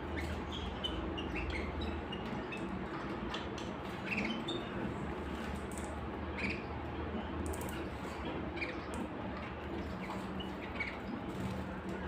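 Caged domestic canaries giving short, scattered chirps rather than a full song, with a few light clicks among them over a steady low hum.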